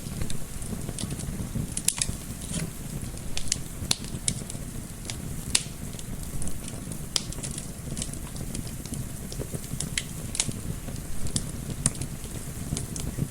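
Wood fire crackling in a fireplace, with frequent irregular sharp pops over a steady low rumble of gentle wind.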